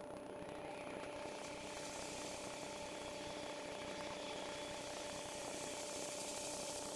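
Wood lathe running with a steady electric hum while an inertia sander on a long hollowing bar sands the inside of a hollowed sycamore vase. A soft sanding hiss comes in about a second and a half in and grows stronger near the end.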